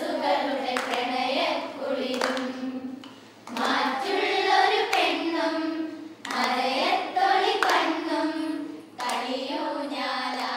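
A group of girls singing together with hand-clapping, in phrases of about three seconds broken by short pauses.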